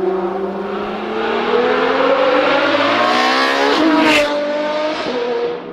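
Car engine accelerating hard, its pitch climbing steadily. About four seconds in the pitch drops at a gear change, with a brief hiss. The engine then pulls on and fades away.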